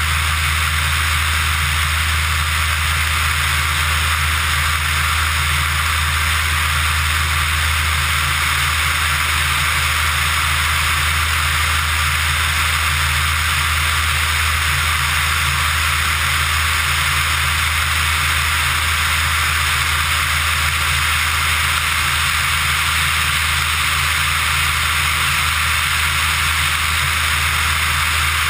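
Pipistrel Virus ultralight aircraft in level cruise: the steady drone of its engine and propeller, under a constant rush of airflow over an outside-mounted microphone.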